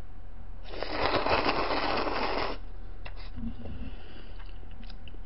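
A person slurping a mouthful of noodles, one loud, fluttering slurp lasting about two seconds that starts about a second in, followed by quiet chewing.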